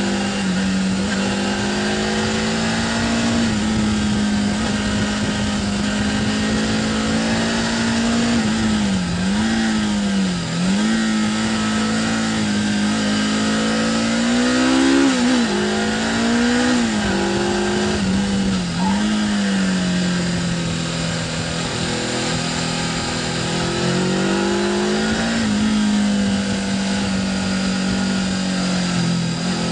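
Suzuki GS 500's air-cooled parallel-twin engine under way, heard from on board the motorcycle, its note rising and falling with the throttle and dipping sharply several times before picking up again. A steady hiss of wind and road noise runs under it.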